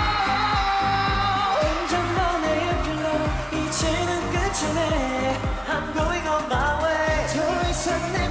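K-pop song performed live: a solo male voice sings the melody over a backing track with a steady beat.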